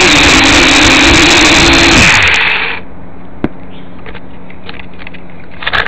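Eachine H8C mini quadcopter's propeller motors buzzing loud and close, picked up by the drone's own onboard camera microphone. The pitch falls and the motors wind down and stop about two and a half seconds in. After that come a faint steady hum, a sharp click, and a few light taps near the end.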